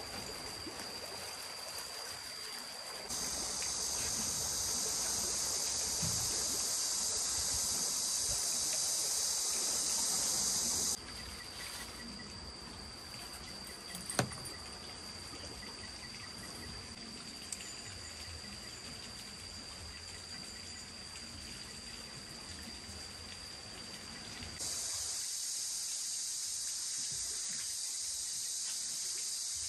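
Steady outdoor ambient noise with a thin, high steady tone. A louder high hiss cuts in about three seconds in, drops out abruptly about eleven seconds in, and returns near the end. A single sharp click comes around fourteen seconds in.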